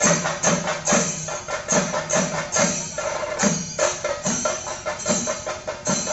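Chenda drums beaten by an ensemble in a fast, dense rhythm for a Theyyam dance, with a deeper stroke landing about every half second under the rapid rolls.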